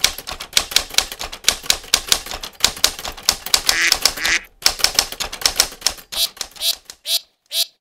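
Typewriter sound effect: keys clacking rapidly and unevenly, followed near the end by a few short duck quacks.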